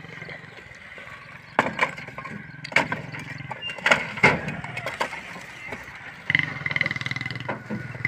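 A wooden door frame being wrenched loose from a brick wall: a run of sharp knocks and cracks with bricks clattering, the loudest strokes coming in the middle of the stretch, over a steady low hum.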